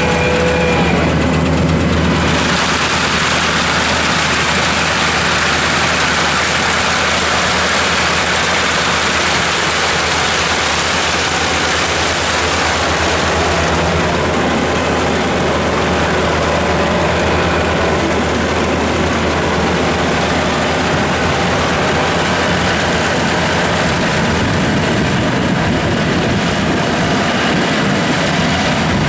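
Kubota AR96 combine harvester running steadily: a constant low diesel engine hum under a dense, even mechanical noise, with no pauses or revving.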